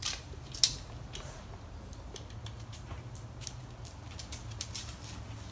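Hand tools and small hardware being handled during work on a motorcycle's rear shocks: two sharp clicks in the first second, then scattered lighter clicks, over a low steady hum.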